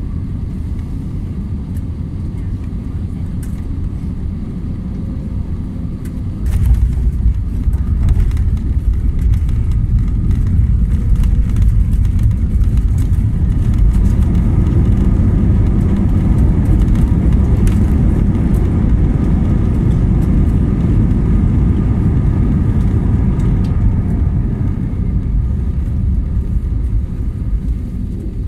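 Cabin sound of an Airbus A320-family airliner landing. A steady engine and airflow rumble on final gives way to a sudden jolt and a step up in low rumble about six and a half seconds in as the wheels touch down. A louder rumble follows while the jet decelerates down the runway with its spoilers up, easing off near the end.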